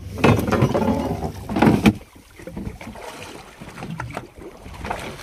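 Water splashing against a small fishing boat's hull as a hooked billfish thrashes alongside, with two louder bursts in the first two seconds, then quieter sloshing.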